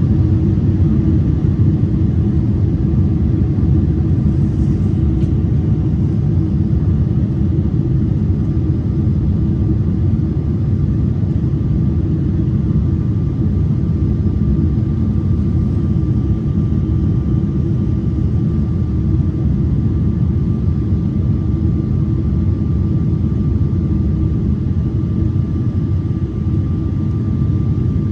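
Steady cabin rumble of a Boeing 777-300ER in descent on approach: engine and airflow noise from its GE90 engines and the airframe, with a faint steady whine above it.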